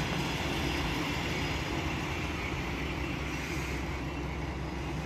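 Train running through the station: a steady, even rumble with wheel-on-rail noise.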